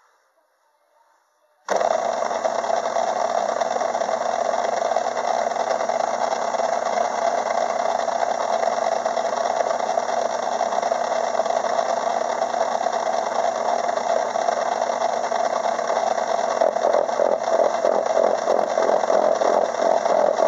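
Craftsman 6-inch metal lathe switched on about two seconds in, running steadily as it spins a gear cutter. In the last few seconds a fast, even chatter comes in as the cutter begins cutting teeth into the steel gear blank.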